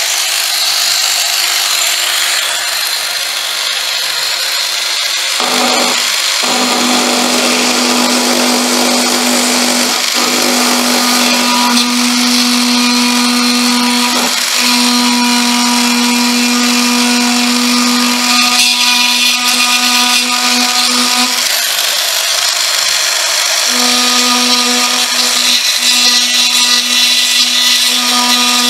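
Handheld high-speed rotary tool running with a small cutting bit, grinding a slot into the composite wing skin. The steady motor whine and grinding hiss falter briefly several times as the bit bites, with a longer break about three quarters of the way through.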